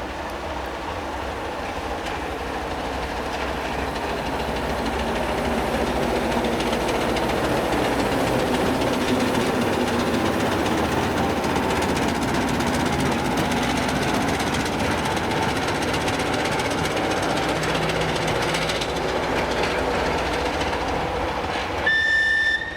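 ChME3 shunting diesel locomotive running, its engine and wheels on the rails growing louder over the first several seconds, then holding steady, with wheel clatter over rail joints. Near the end a short, high-pitched whistle blast sounds.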